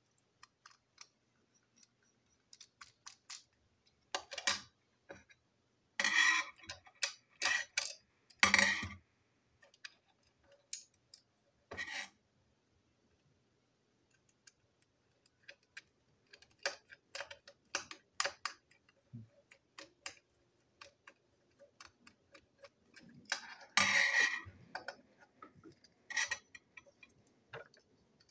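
A small screwdriver turns a screw in a plastic toy train truck, with scattered clicks and ticks from the plastic parts as they are handled. Louder clatters come about four to nine seconds in and again around twenty-four seconds in.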